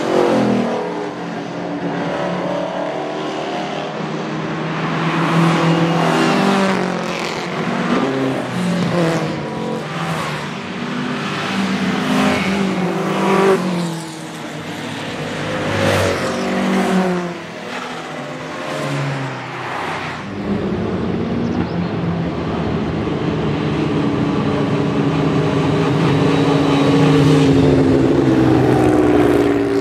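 Historic race cars accelerating hard past one after another, their engines revving up and dropping back at a string of gear changes. For the last third a Porsche 911 RSR's air-cooled flat-six holds one steadily rising note as it passes close.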